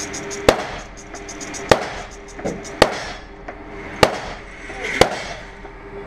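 Five pistol shots from a SIG P210 firing 9mm Luger Blazer Brass 124-grain FMJ rounds, about one a second, each with a short echo off the walls of an indoor range.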